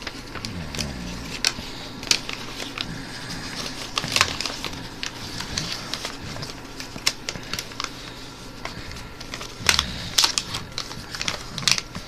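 A sheet of paper being folded and creased by hand into a paper airplane: irregular rustling and crinkling with many sharp crackles as the folds are collapsed and pressed.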